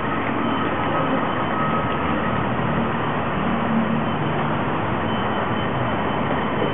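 Steady city street traffic noise: vehicles running past, with a faint steady whine in the first couple of seconds.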